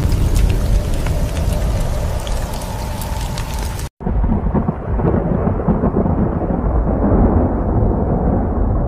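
Rain hissing, with sharp crackles through it, cuts off abruptly about four seconds in. After a split-second gap a low, muffled rumble like thunder follows.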